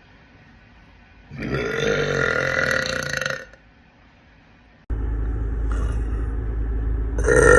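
A woman's drawn-out burp of about two seconds, with a clear pitch. A few seconds later a steady low rumble cuts in suddenly, and a second burp begins near the end.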